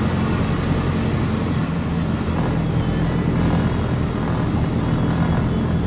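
Steady engine drone and road noise heard from inside the cab of a Mercedes Sprinter van on the move.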